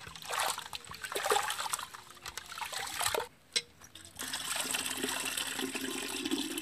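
A hand swishing rice about in water in a steel basin, with irregular splashing. About four seconds in, the wet rice and water are poured from the hand into a brass pot: a steady trickling pour.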